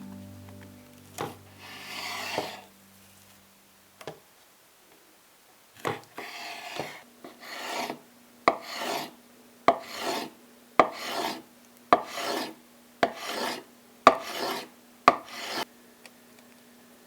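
Repeated scraping strokes against a hard surface, about one a second, each starting with a sharp tap; a few separate scrapes come first, then a steady run of strokes that stops a little before the end.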